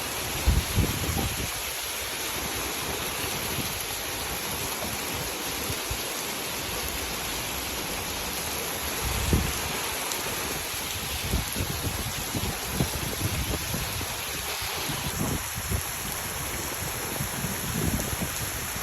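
Heavy rain with rushing runoff water, a steady hiss. Low gusts of wind buffet the microphone now and then.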